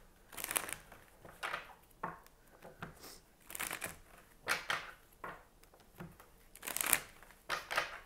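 A deck of oracle cards being shuffled by hand: a series of short papery swishes, one or two a second.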